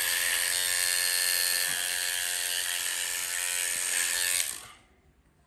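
Electric dreadlocks machine running steadily as it locks natural hair, a buzz with a strong high hiss; it cuts off suddenly about four and a half seconds in.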